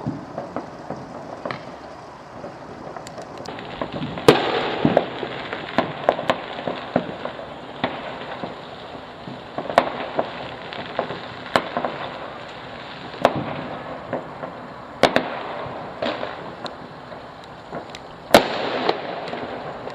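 Fireworks going off: many sharp bangs at irregular intervals over a continuous crackle, with the loudest bangs about four seconds in, about fifteen seconds in and near the end.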